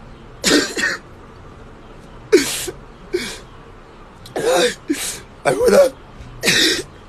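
A man sobbing: a string of about eight short, ragged breathy gasps and choked cries, some with a brief wavering wail in the voice.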